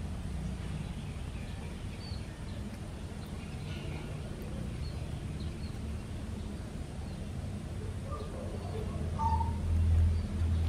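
Faint scattered bird chirps over a steady low rumble, which grows louder near the end.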